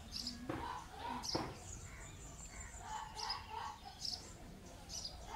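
Small birds chirping in short repeated calls over garden ambience, with a thin high tone held for about two seconds in the middle and a couple of soft knocks near the start.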